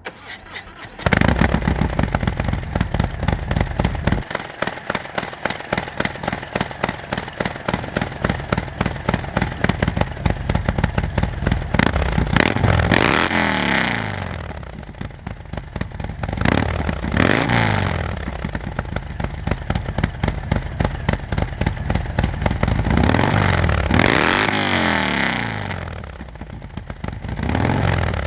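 2019 Harley-Davidson Fat Bob's Milwaukee-Eight 114 V-twin, running through an S&S SuperStreet 2-into-1 exhaust. It starts about a second in and idles, then is revved up and let back down several times in short blips.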